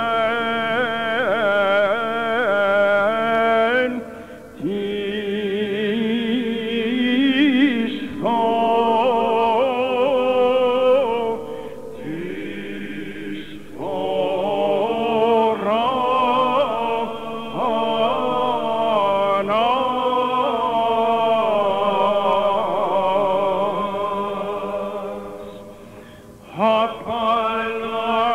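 Greek Orthodox Byzantine chant: a voice sings a winding, ornamented melody over a steady held drone. It comes in long phrases with brief breaks between them.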